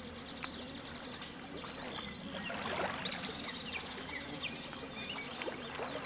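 Lakeshore ambience: water lapping at the shore, with small birds chirping and trilling throughout.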